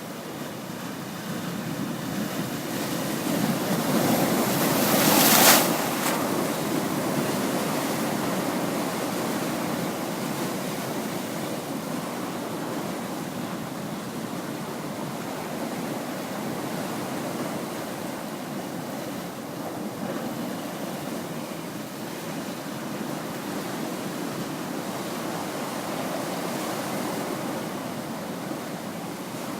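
Pacific Ocean waves breaking against seaside cliffs: a surge builds to one loud crash about five seconds in, then a steady rushing wash of surf that swells again near the end.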